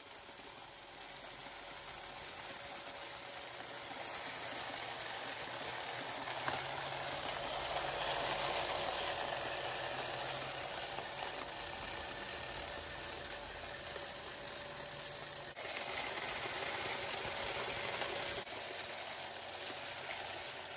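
Scan Coin 303 coin counter running, a steady mechanical whir with quarters rattling and clinking as its spinning hopper disc feeds them through to be counted.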